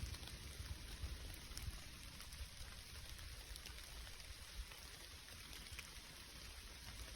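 Faint steady rain, with scattered drops ticking close by and a low rumble underneath.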